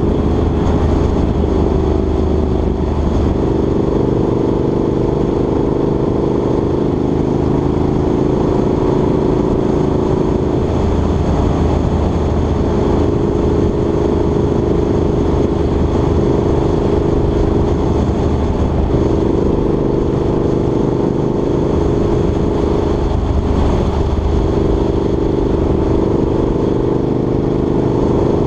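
Motor vehicle driving at a steady cruising speed: a continuous engine drone with road and wind noise. Its hum shifts in pitch a few times.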